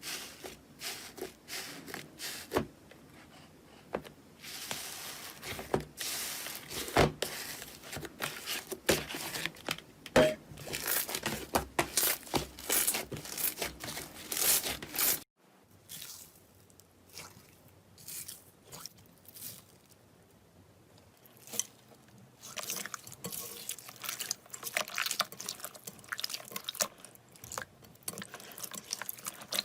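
Slime being squeezed, pressed and stretched by hand, making dense sticky crackles, clicks and squishy pops. About halfway through the sound cuts off abruptly and then starts again with sparser crackles.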